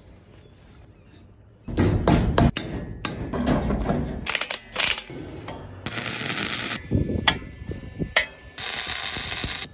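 Steel parts being worked: a run of loud clanks and knocks of metal on metal, then two short bursts of steady, crackling hiss, about six seconds in and again near the end.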